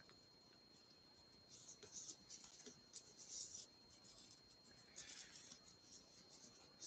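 Near silence with faint, scratchy rustling of yarn and a crochet hook being worked, in two spells: from about one and a half seconds in, and again about five seconds in.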